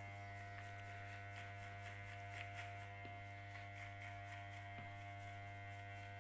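Electric hair clipper with a guard comb attachment running with a steady hum as it is passed up through short hair on the side of the head, fading it.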